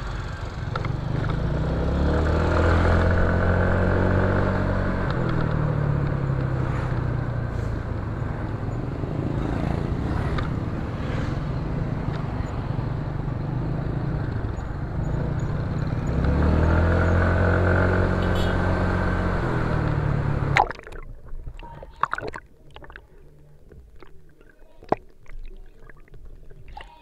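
Motor scooter engine running under way, with wind and road noise; its pitch climbs and falls twice as it speeds up and slows. About 21 seconds in it cuts off abruptly to muffled underwater sound with scattered clicks, knocks and gurgling, picked up by the action camera's internal microphone in a waterproof case under water.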